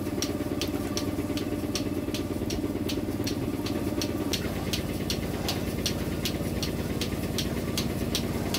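Electric vacuum pump of a portable cow milking machine running with a steady hum, with regular clicking about three times a second, typical of its pulsator. The hum's tone shifts slightly about four seconds in.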